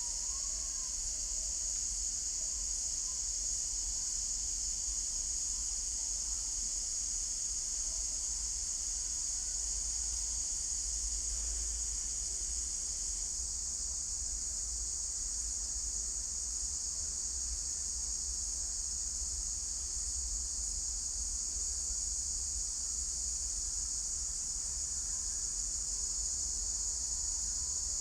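Steady, high-pitched chorus of insects trilling without a break, over a faint low rumble.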